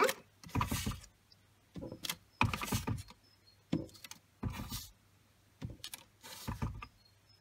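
A clear acrylic-block rubber stamp pressed down onto cardstock on a craft mat again and again, with the card shifted and turned between presses: a series of short knocks and paper rustles about once a second.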